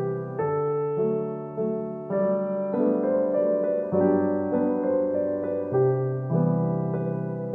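Background piano music, with sustained notes and a new note or chord about every half second.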